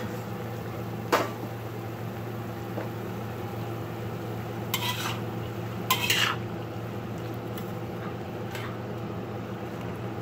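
Metal spatula and ladle scraping and clanking against a wok as bean sprouts, mushrooms and chicken are stir-fried, over a sizzle and a steady low hum. There is a sharp clank about a second in, longer scrapes around the middle, and another stroke near the end.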